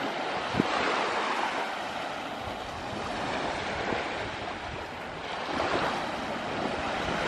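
Small waves washing onto a sandy shore, with the wash swelling about a second in and again near six seconds; light wind on the microphone adds a low buffet now and then.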